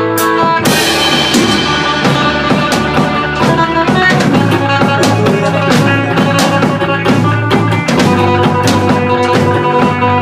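Instrumental rock music with guitar and a drum kit, the drums entering with a cymbal crash about half a second in.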